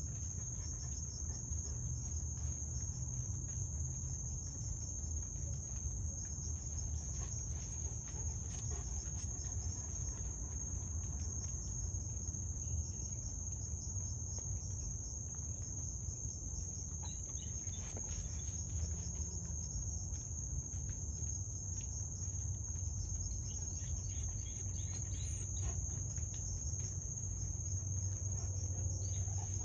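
Crickets chirping in a continuous night chorus, a steady high-pitched trill, over a low rumble.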